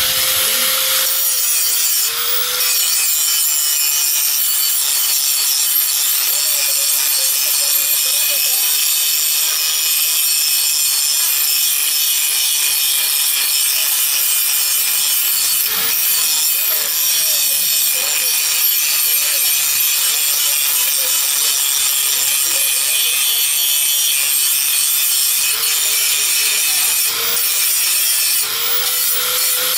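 Electric angle grinder grinding the edge of a steel billhook blade held in a vice: a loud, steady, high-pitched grinding hiss, with the motor's note wavering slightly as the disc is pressed into the metal.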